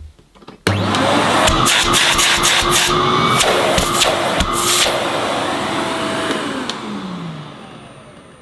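Miele S228i cylinder vacuum cleaner's 1100-watt motor switched on with a sudden loud rush of air, running with several sharp surges in the airflow noise, then switched off about six seconds in and winding down with a falling whine.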